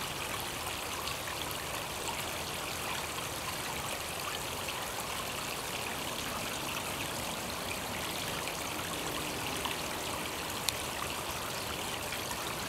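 Steady rushing and splashing of a backyard swimming pool's waterfall feature, with one sharp click near the end.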